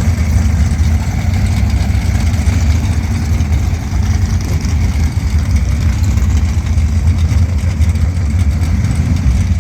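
Drag car's engine idling steadily with a deep rumble, no revving.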